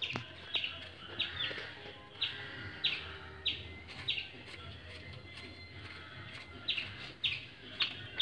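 A bird chirping over and over, short falling chirps about two a second, with a pause of a second or so past the middle.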